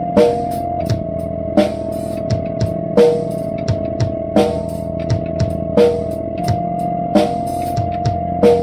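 Instrumental rock music: a drum kit keeps a steady beat, its strongest hits falling about every second and a half, under guitar and a single steady note held without a break.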